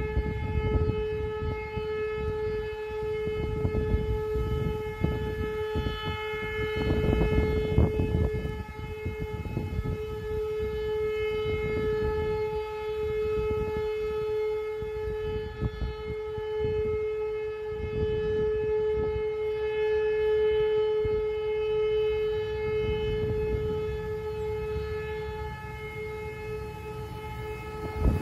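Civil defence siren sounding the Austrian 'Warnung' warning signal: one steady, unbroken tone with no rise or fall, over a gusty low rumble.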